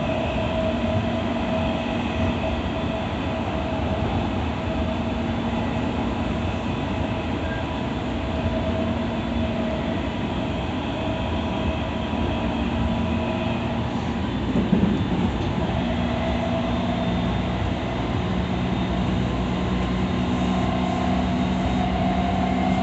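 E217-series electric multiple unit running: a steady rumble of wheels on the track with steady traction-motor and inverter tones over it. About fifteen seconds in, the tones shift in pitch and pattern.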